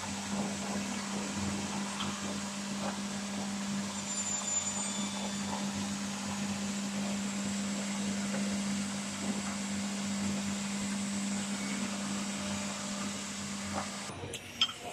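Multi-purpose double-head wood cutting, drilling and insert-setting machine running with a steady motor hum and hiss, with a few faint ticks. Near the end the hum cuts off suddenly and a couple of sharp clicks follow.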